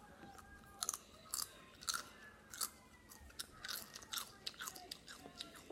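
Chips being chewed close to the microphone: a string of short, sharp crunches at an uneven pace, roughly two a second.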